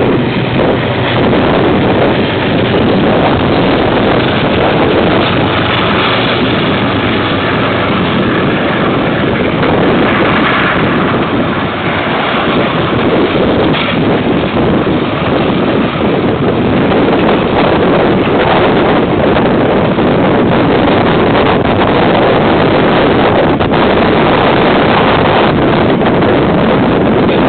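KiwiRail diesel freight train passing close by: the locomotive and a long string of container wagons running over the rails as a steady, loud noise, heard through a security camera's microphone along with wind noise.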